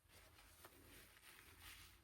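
Near silence, with faint soft rustling and one light tick a little over half a second in.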